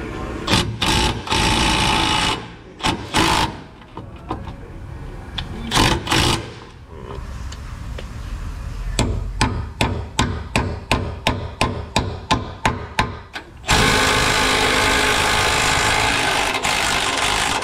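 Cordless impact wrench hammering on rusty driveshaft carrier-bearing bolts. It gives several short runs in the first few seconds, then a string of quick separate bursts about three a second, then one long steady run near the end.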